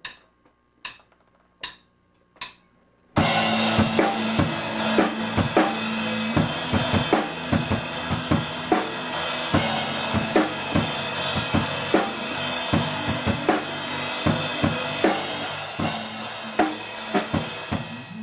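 Four drumstick clicks counting in, evenly spaced, then a blues-rock band comes in loud about three seconds in and plays on a busy drum kit with cymbals, with sustained instruments beneath, dying away near the end.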